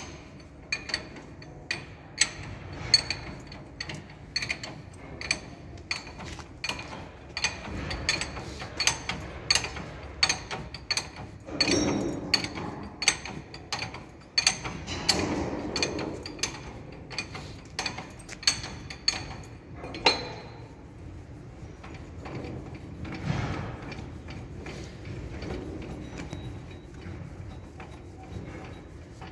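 Repeated sharp metallic clinks and taps of hand tools on the steel brake gear of a VL10 electric locomotive's bogie, about one or two a second. A few longer scraping sounds are mixed in. The clinking thins out about two-thirds of the way through, leaving quieter handling noise.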